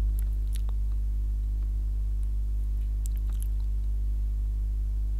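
Steady low electrical hum with no change in pitch, and a few faint clicks.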